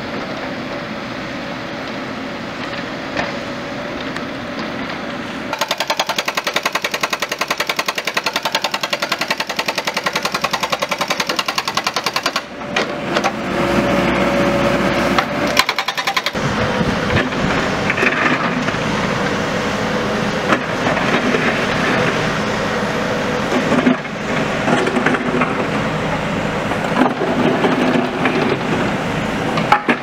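Heavy diesel construction machinery running at a work site. A fast, even rattling pulse lasts several seconds, then comes steady engine noise with scattered clanks and knocks.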